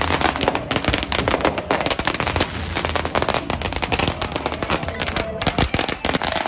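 Fireworks and ground firecrackers going off together: a continuous rapid run of sharp bangs and crackles, many each second, with no pause.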